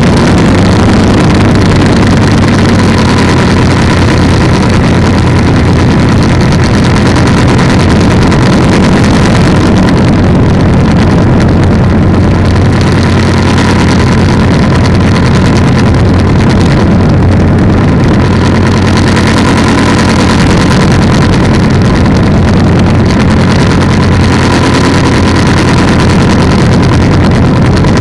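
Polini 190 single-cylinder two-stroke engine on an ultralight trike, running loud and steady at a constant speed.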